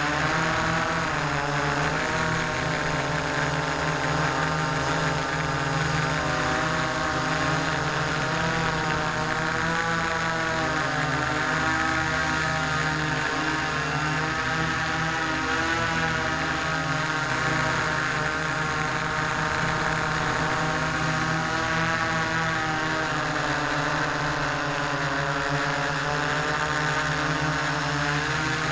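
S650APM hexacopter's six electric motors and propellers in flight, heard from its own onboard camera: a steady hum-whine made of several tones whose pitches keep wavering up and down as the motor speeds are varied to hold the craft in the air.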